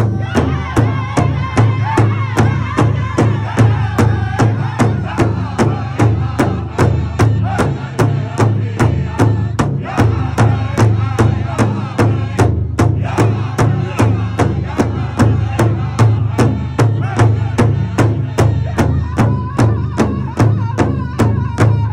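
Powwow drum group singing: several drummers strike one large powwow drum in unison with drumsticks, a steady beat about two and a half strokes a second, while men and women sing over it.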